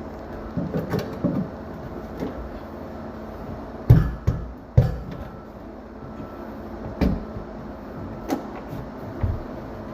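Irregular knocks and clunks over a steady low hum, the two loudest near the middle: hard objects being handled and set down during plumbing work.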